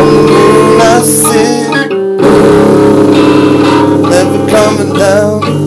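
Guitar music: a sustained chord rings with short bending notes above it, cuts out briefly about two seconds in, then the chords come back.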